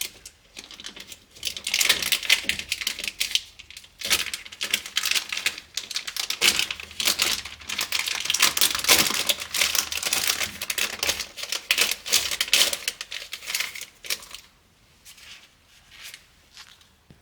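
Dense crinkling, rattling and clicking of hands working inside a door, handling parts and trim. It starts about a second and a half in and dies away near the end.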